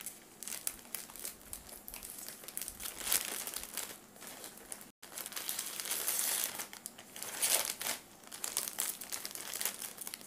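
A plastic courier mailer bag crinkling and rustling as it is handled and cut open with scissors, in an irregular run of crackles, with a momentary dropout in the sound about halfway through.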